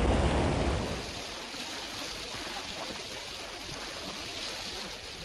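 Creek water rushing over shallow riffles, a steady hiss. It is louder and deeper for about the first second, then settles.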